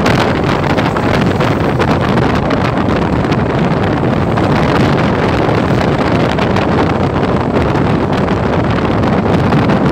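Steady wind rush over the microphone of a Yamaha NMAX 155 scooter ridden at cruising speed, with the scooter's running noise underneath.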